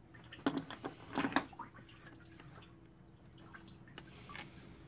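Scattered light clicks and taps from a hand feeling around the open thermostat housing on the engine, with a few sharper ones in the first second and a half and fainter ticks near the end.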